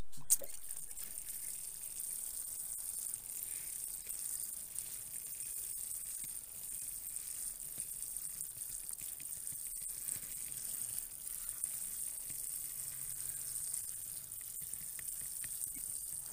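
Fine spray of water falling steadily onto the gravel surface of a potted tree's soil, a soft even hiss, with a sharp click at the very start.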